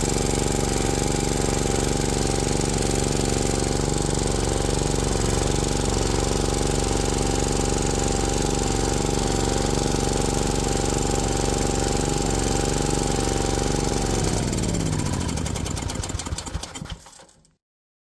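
A 1974 snowthrower engine running steadily, then about fourteen seconds in it loses revs, its pitch falling, and dies within a few seconds. It has cut out, which the owner wonders is the fuel filter clogging up again.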